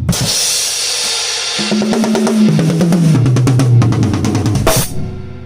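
Yamaha Hip Gig drum kit with a new Remo Powerstroke P3 Clear drumhead, played as a sound check. A cymbal crash washes out as it begins, then a fill runs down the toms from high to low, and a final crash hit near the end rings out and fades.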